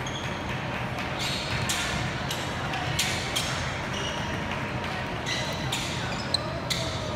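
Echoing gym noise from volleyball play on a hardwood court: ball thuds and short sneaker squeaks at irregular moments throughout, over a low murmur of voices in the hall.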